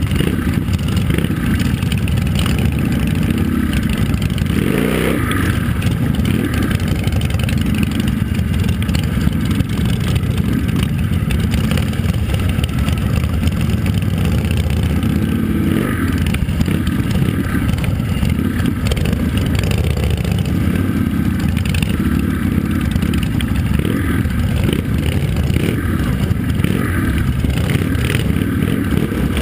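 Several motorcycle engines running at low speed, a loud, steady low rumble, with a brief rev about five seconds in.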